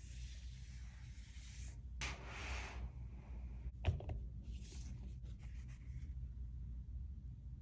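Packaging boxes being handled: soft rustling and rubbing of the boxes, with a sharp tap a little before halfway through and a few light ticks after it, over a steady low hum.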